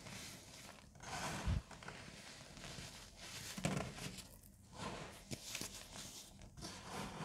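Loose powdery baking soda squeezed and crumbled between the fingers, crunching in a series of separate squeezes about a second apart.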